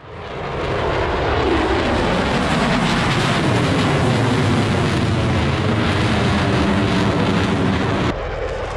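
USAF F-16 fighter's single jet engine roaring in afterburner as it flies overhead: a loud, steady roar that fades in over the first second. Near the end it cuts abruptly to a quieter jet roar.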